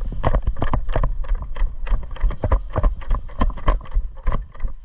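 Airsoft guns firing shots in quick, irregular succession, about six sharp cracks a second, over low wind and movement rumble on the microphone.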